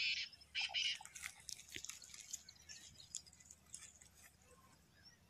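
Plastic parts of a homemade horn being handled and fitted together: a few short scraping bursts in the first second, then light, irregular clicks that thin out.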